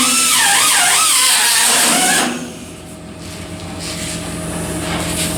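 A high-pitched power tool whining with a wavering pitch, cut off suddenly about two seconds in. A steady machine hum is left behind and slowly grows louder.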